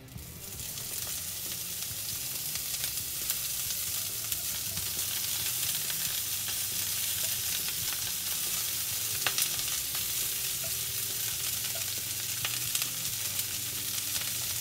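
Broccoli florets frying in hot olive oil in a skillet: the sizzle starts suddenly as they go into the oil and then holds steady, with a few sharp crackles.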